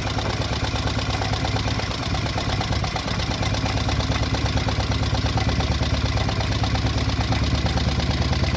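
Traditional inboard launch engine running at a steady idle with a fast, even beat, just after its first start after sitting.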